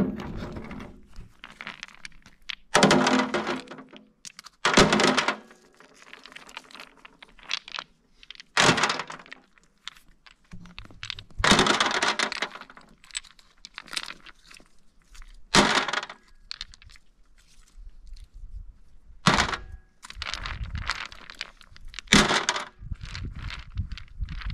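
Heavy knocks and scrapes of manual building work, coming every two to four seconds, some sharp and some lasting about a second.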